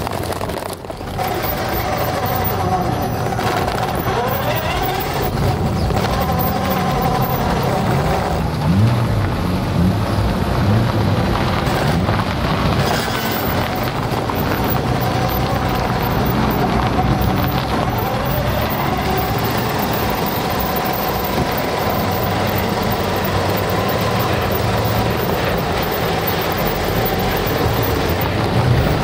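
Motor and gears of a radio-controlled car whining as it drives over gravel, the pitch rising and falling as it speeds up and slows down.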